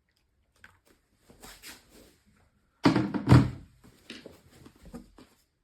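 Handling knocks on the Outin Nano portable espresso machine as it is filled with hot water: two loud thunks about half a second apart, with lighter clicks and taps before and after.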